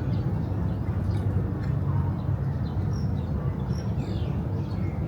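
City park ambience: a steady low rumble of city traffic, with short bird chirps scattered through it.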